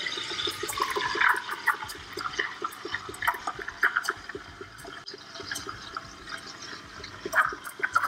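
Decent DE1 espresso machine's steam wand hissing into a jug of milk, the milk spinning in a strong whirlpool with irregular gurgling and sputtering.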